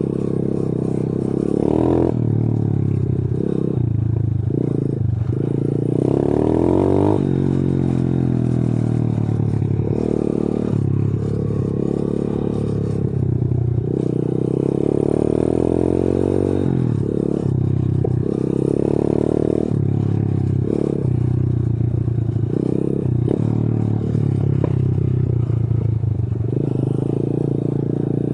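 125 cc pit bike engine running under load, its revs rising and falling again and again as the throttle is opened and eased off, with rattling from the bike over rough ground.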